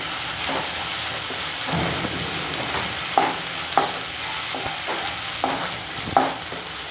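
Onions and ginger-garlic-green-chilli paste sizzling in oil in a non-stick wok while a spatula stirs the mixture, with a run of short knocks and scrapes of the spatula against the pan about every half second in the second half.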